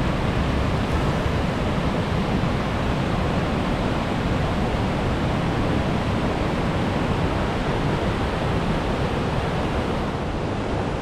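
Upper Linville Falls: a river cascading over rock ledges and through a narrow chute, a steady, even rush of whitewater.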